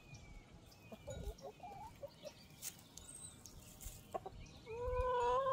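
Backyard hens clucking: a few short, soft clucks about a second in, then near the end one hen gives a louder drawn-out call lasting under a second.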